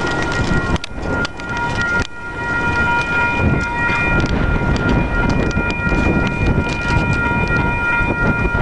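Grade-crossing warning bell ringing steadily over a low rumble of wind buffeting the microphone, as the tail of a freight train clears the crossing.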